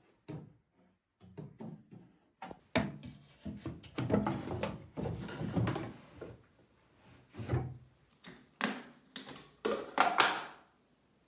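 A run of woodworking handling sounds: rasping strokes of a handsaw cutting a wooden board, then knocks and scrapes of wooden cabinet parts being fitted. Near the end come a few louder knocks from a plastic paint bucket and its lid being handled.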